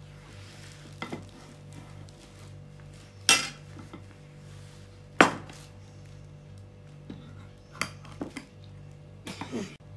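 A metal spoon clinking and scraping against bowls while dry ingredients are scooped and mixed: several sharp clinks, the loudest about three and five seconds in, and a quick cluster near the end.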